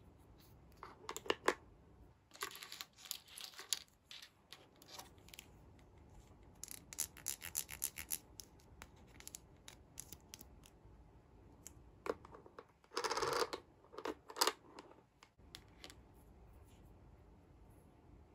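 Small plastic toy pieces handled between fingers: light clicks, taps and scratchy rubs in short bursts, with a longer scraping rustle about 13 seconds in.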